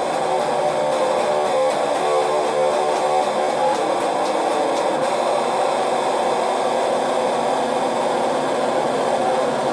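Music with a regular ticking beat over the steady drone of a vacuum cleaner running; the music and ticks stop about five seconds in, leaving the vacuum cleaner drone on its own.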